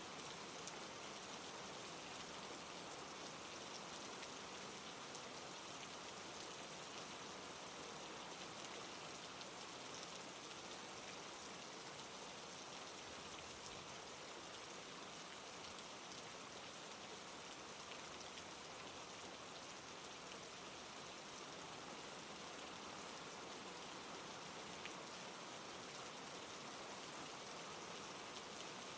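Steady rain, a soft even hiss with faint scattered drop ticks, constant throughout.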